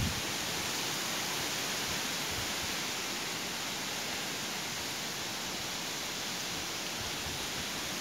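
A steady, even hiss of forest background noise, with a few faint footsteps on a dirt trail.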